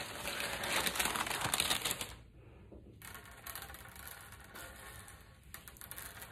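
Dried beans poured from a paper bag, pattering onto a hard lab tabletop in a dense rattle for about two seconds. After a short pause come lighter scattered clicks as the beans are spread out by hand.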